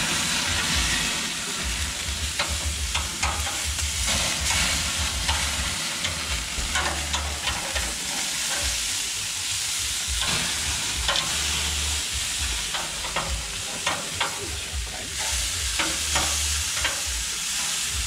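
Chuck roast steaks sizzling on the grates of a hot Kenmore gas grill, with scattered clicks of metal tongs as the steaks are turned.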